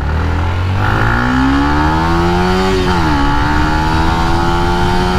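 Yamaha Sniper 150's single-cylinder four-stroke engine, running on a Pitsbike V1 racing ECU, accelerating hard at full throttle. Its pitch climbs, drops at an upshift about three seconds in, and climbs again in the next gear.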